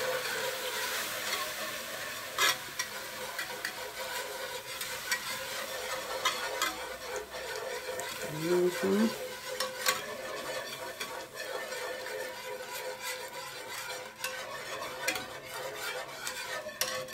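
Metal wire whisk stirring a flour-and-broth roux in a nonstick pan, with many irregular clicks as the wires tap the pan, over a steady sizzle from the pan on the heat.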